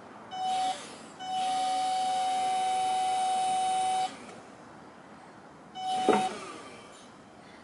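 Electric forklift's hydraulic lift motor running in bursts as the operator works the lift, giving a steady high whine: a short burst near the start, one of about three seconds, and a short one about six seconds in with a sharp knock.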